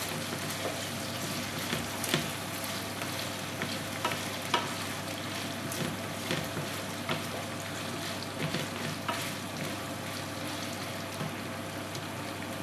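Cubes of pork frying in a non-stick pan, sizzling steadily, while two wooden spatulas stir and turn them, with scattered light scrapes and knocks of the spatulas against the pan.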